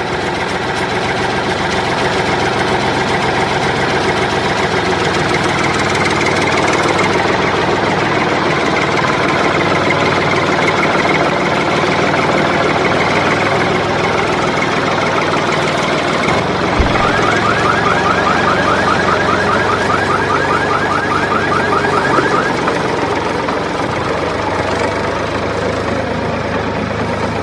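Vehicle engine sound running steadily, with a fast repeating ticking pattern from about 17 to 22 seconds in. The plastic toy tractor itself has no engine, so this is an engine sound laid over the footage.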